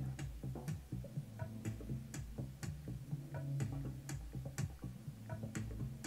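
Background music with a steady ticking beat, about two sharp ticks a second, over a low bass line.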